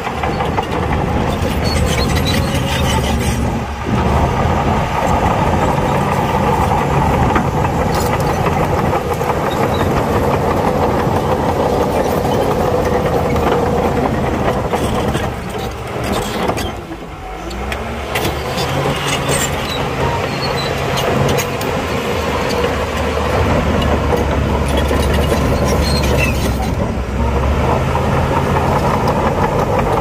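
Diesel engines of heavy earthmoving machinery running steadily, with a brief drop in level about seventeen seconds in.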